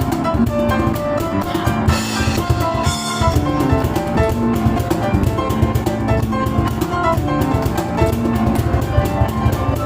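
Live piano and cajon duo playing fast: quick piano figures over a driving cajon beat, with two bright splashes about two and three seconds in.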